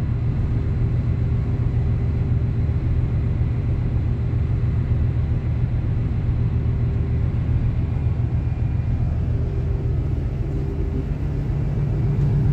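Steady low drone of a ship's engine heard from inside the vessel, with a faint steady tone above it.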